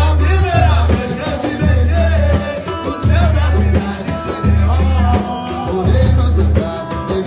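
A song with singing over a deep bass line that comes in long held notes at a steady pace.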